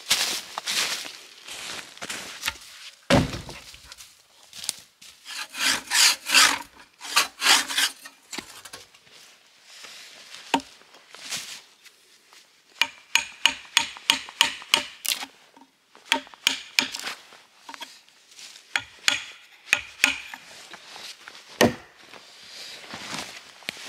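Timber being worked by hand: scattered wooden knocks with a heavy thump about three seconds in, a run of rasping strokes a few seconds later, and a quick series of sharp light taps around the middle.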